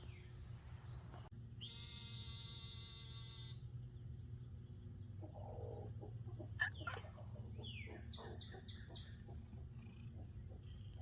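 Chickens calling faintly: one flat, drawn-out call about two seconds in, then a run of short falling clucks later on.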